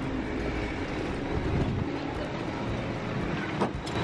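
Steady low rumble and hum of airport apron machinery heard from a stairwell that opens onto the apron, with a single clunk near the end.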